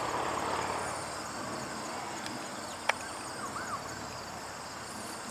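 Steady high chirping of crickets and other insects, with a soft hiss in the first second and a single sharp click about three seconds in.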